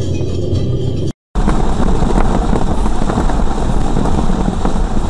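Steady low road and engine noise inside a moving car, which cuts out briefly about a second in. It is followed by loud, steady heavy rain hitting the car's windscreen and body, mixed with tyres hissing through standing water on a wet motorway.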